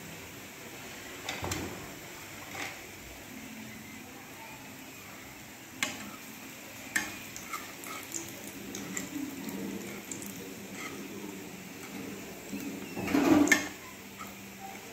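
Battered suseeyam balls deep-frying in hot oil in a kadai, the oil sizzling and bubbling steadily. A metal ladle clinks against the pan several times as the balls are turned, with a louder clatter near the end.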